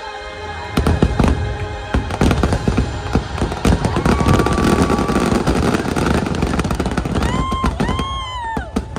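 Rapid, dense barrage of firework bursts over the show's music, typical of a fireworks finale, starting about a second in; near the end, whoops from the crowd.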